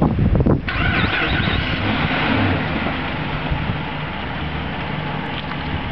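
Surf breaking and washing up the beach as a steady rush, with wind buffeting the microphone in low, uneven rumbles.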